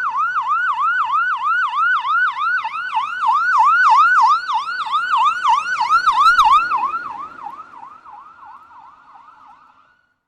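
Electronic police siren on its fast yelp, the pitch sweeping up and down about three times a second. It is loudest around the middle, then fades away over the last three seconds.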